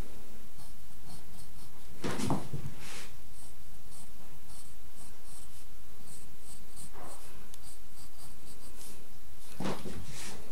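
Pencil scratching on drawing paper as short lines are drawn between points, with a couple of louder rustles about two seconds in and near the end.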